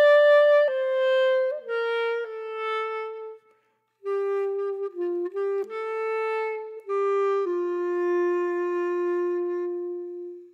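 Background music: a slow melody of single held notes on a wind instrument, pausing briefly a little after three seconds in. The chop saw seen cutting is not heard.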